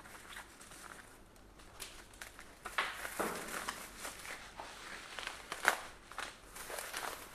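Plastic packaging crinkling and rustling as parts are unwrapped by hand, with scattered small clicks and knocks, busier from about two seconds in and with one sharper click near the end.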